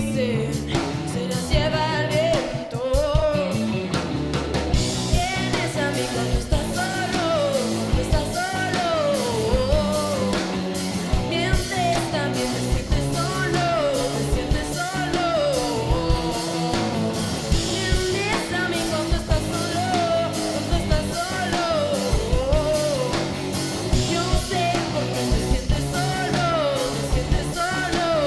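Rock song played by a band with guitar, bass and drums, a melodic line sliding down in pitch about every two seconds.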